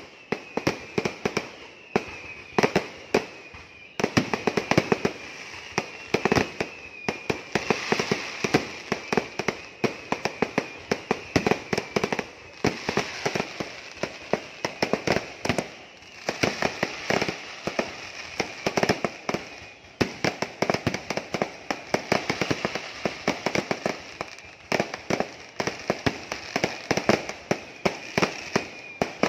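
Festival fireworks display: a dense, continuous barrage of aerial shell and firecracker bangs, several a second, coming in volleys with brief lulls, over a high, wavering whistle.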